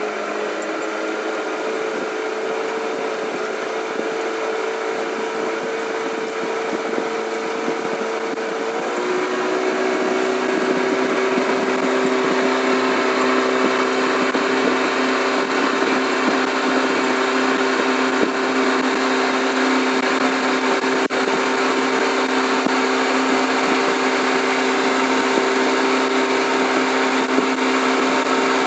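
Mercury 9.8 hp outboard motor running steadily while the boat trolls. About nine seconds in its note steps lower and it gets a little louder, then holds steady.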